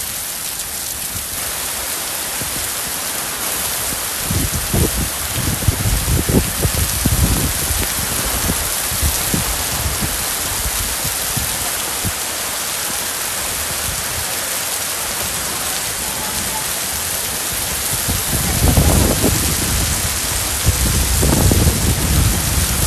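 Heavy rain falling steadily, a dense even hiss, with bouts of low rumbling about four to eight seconds in and again near the end.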